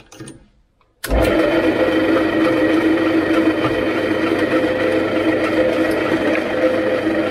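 A few small clinks, then about a second in a drill press motor is switched on and runs steadily with a countersink bit in the chuck, a steady hum over the motor noise.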